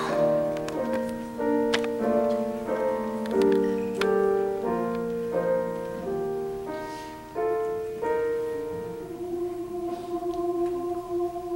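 Piano playing a slow broken-chord introduction, one note after another ringing out and fading. About nine seconds in the piano notes stop and one soft, steady held note takes over, the choir's voices entering in unison.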